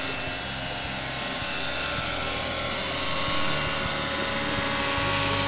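Large-scale radio-controlled Alouette III model helicopter flying: its motor and main rotor running steadily, a constant whine over a broad hiss.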